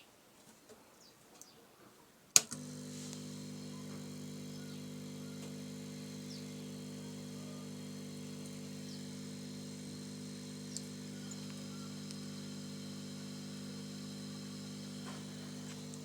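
A sharp click about two and a half seconds in, then a steady electric motor hum, plausibly the washing machine being switched on and running.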